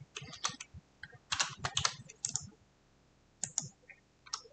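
Computer keyboard typing: a quick run of keystrokes, a pause of about a second, then a few more key presses.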